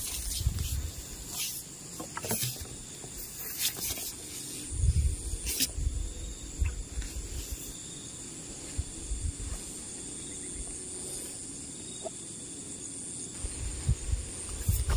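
Outdoor ambience beside a rice-field channel: a steady high-pitched hiss, with scattered sharp clicks and knocks in the first few seconds and low rumbles about five seconds in and again near the end.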